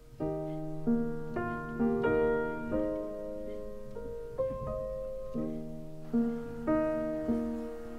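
Background music: a piano piece with a new note or chord struck about every half second, each one fading as it rings.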